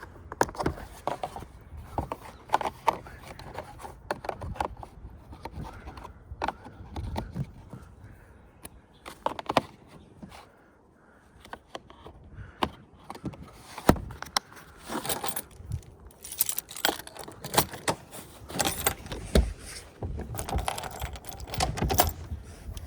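Small metal tools and hardware clinking and rattling as they are handled and put away, with scattered clicks and knocks. There is a brief lull about ten seconds in.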